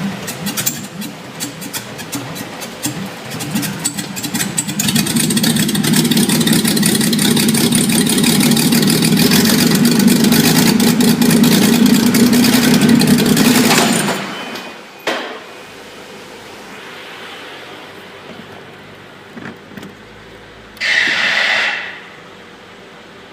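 Mercedes M110 2.8-litre twin-cam straight-six cranking on a trial start after repair, catching after a few seconds and running loudly for about ten seconds before it cuts off abruptly. A click follows, and near the end there is a short hiss-like burst.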